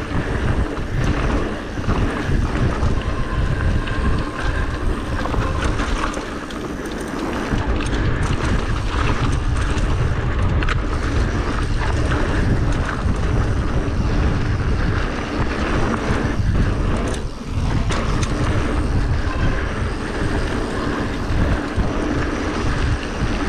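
Mountain bike descending a dirt singletrack at speed: a steady rush of wind on the microphone over the rumble of tyres on dirt and loose gravel, with frequent knocks and rattles as the bike jolts over bumps.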